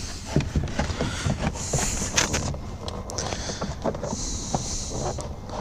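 Hands handling a truck door panel and its wiring: scattered small clicks, taps and plastic rustling as the control-switch cord is worked into place.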